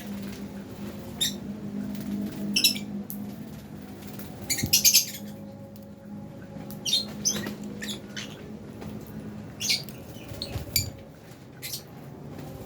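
Lovebirds giving short, high-pitched chirps and squeaks in scattered bursts, the loudest cluster about five seconds in, over a steady low hum.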